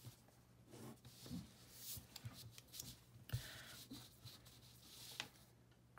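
Faint pen strokes scratching on paper, then sheets of paper rustling and sliding as they are handled from about halfway through, with a couple of light ticks.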